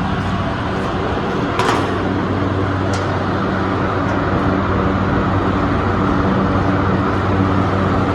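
Refrigeration rack with its condenser fan motors running: a steady low hum under a loud whoosh of moving air. A sharp click or knock about one and a half seconds in, and a lighter one about three seconds in.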